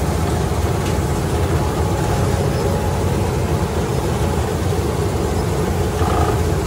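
Combine harvester running steadily as it cuts paddy, its engine and machinery heard from the driver's seat.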